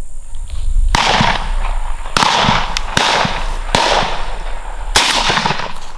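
Shotguns firing at passing doves: about five loud shots in quick succession, irregularly spaced roughly a second apart and starting about a second in, each with a short echoing tail, with a few fainter, more distant shots among them.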